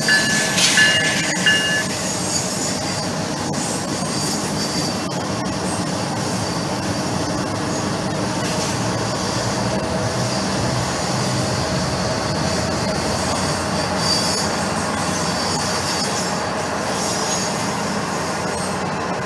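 Freight train of autorack cars rolling past close by, a steady rumble of wheels on rail. High-pitched wheel squeal comes in broken pieces in the first couple of seconds, and fainter squeals come and go after.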